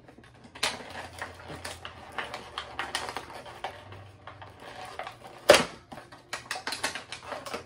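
Cardboard doll-box packaging being handled and pulled apart by hand: a run of irregular crinkles and clicks, with one sharp snap about five and a half seconds in.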